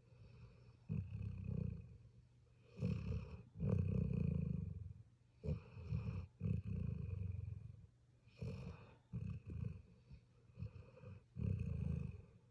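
A sleeping puppy snoring: low, rumbling snores with each breath, coming every second or two.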